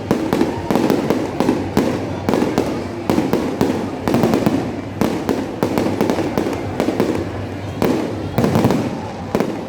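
Fireworks display going off continuously: a rapid, dense run of bangs and crackling shell bursts over a steady rumble of detonations.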